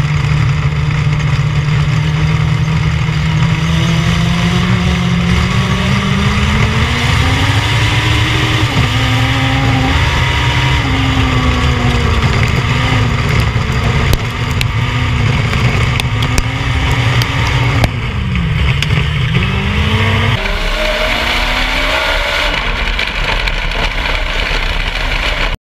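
Legend race car's Yamaha motorcycle engine at racing revs, heard from inside the cockpit. The pitch climbs over the first several seconds, then rises and falls with the throttle, with a sharp dip and recovery around 18 s. Two sharp knocks come near the middle, the sound changes abruptly after about 20 s, and it cuts off suddenly near the end.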